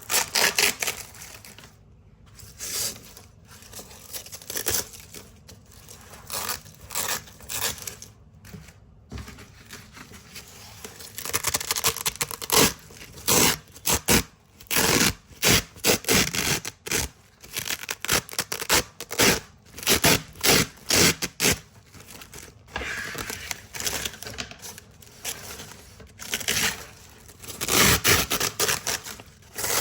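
Hook-and-loop (Velcro) tape being ripped apart in a run of short, crackling tears, faster and louder in the middle and again near the end, with quieter stretches between.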